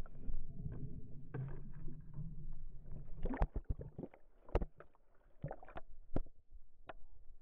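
Bumping and jostling of an action camera strapped to a dog: a low rumble for the first three seconds, then a series of sharp knocks and thumps.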